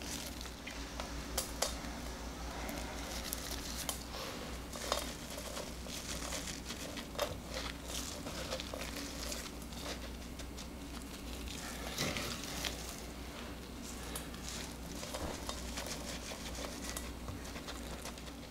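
Dark couverture chocolate shavings rustling and crackling as gloved hands press them onto the whipped-cream sides of a cake, with a few sharper clicks of flakes and fingers against the metal turntable.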